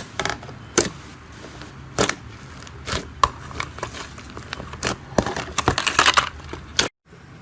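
Slime being handled, giving sharp scattered pops and clicks, with a dense run of crackling about five seconds in. The sound breaks off abruptly near the end.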